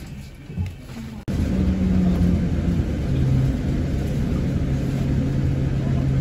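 A city bus running, heard from inside the passenger cabin: a steady low rumble of engine and road noise with a droning hum. It comes in suddenly and much louder about a second in, after a quieter start.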